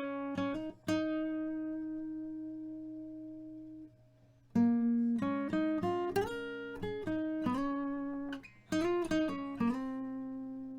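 Background music of plucked guitar notes. One note rings and fades for a few seconds, there is a brief pause about four seconds in, then a quicker run of notes follows.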